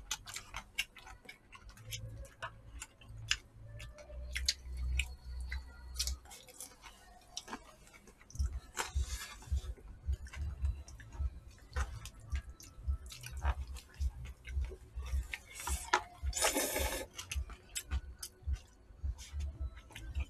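Eating at a table: many light clicks and taps of chopsticks against disposable plastic takeout bowls, over low thuds from the table, with two short noisy bursts, about halfway through and again near the end, that fit noodle slurping.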